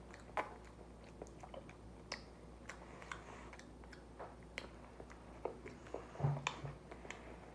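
A person chewing a soft chocolate-chip bread bun with the mouth close to the microphone: quiet, scattered mouth clicks and smacks, with a brief low hum about six seconds in.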